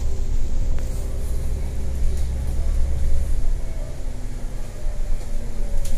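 Inside a moving bus: steady engine and road rumble heard in the cabin, with the deep rumble easing about three seconds in.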